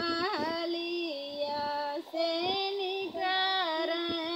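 A woman singing a North Indian folk wedding song (vivah geet, for a son's wedding) solo and unaccompanied, in long held, gliding notes with a short break about two seconds in.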